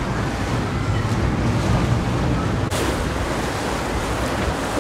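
Passenger boat cruising: a steady low engine hum under a constant wash of water and wind noise.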